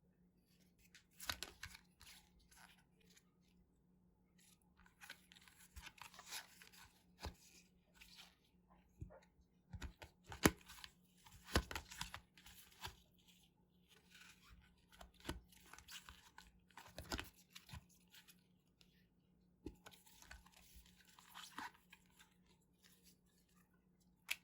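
A surprise pack's wrapper being torn open and crinkled by hand, in irregular bursts of crackling and tearing with sharp clicks.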